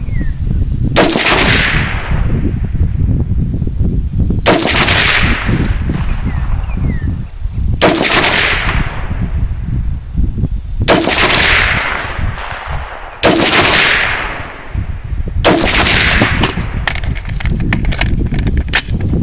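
AR-15 rifle firing six single aimed shots, about one every two to three seconds, in slow deliberate fire for accuracy.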